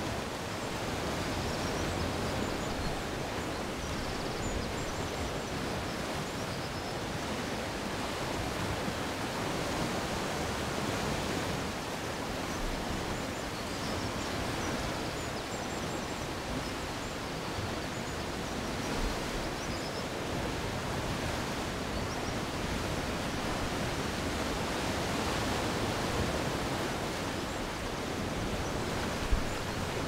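Small waves breaking and washing over a shingle and rock beach, a steady rush of surf. A short low thump comes near the end.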